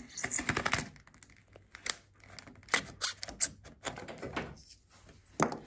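Irregular light clicks and taps of handling noise, a dozen or so scattered through with short gaps, from a hand and the phone moving about the turfed deck edge.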